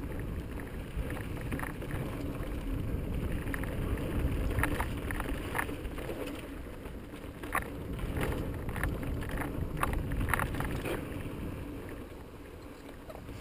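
Mountain bike rolling over bare sandstone: a steady low rumble of wind on the microphone and tyres on rock, broken by scattered short sharp clicks and rattles from the bike.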